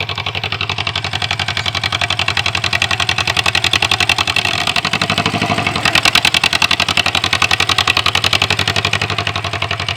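Two-cylinder engine of a 1947 John Deere M tractor running steadily, its rapid, even firing pulses clearly heard. It grows louder about six seconds in.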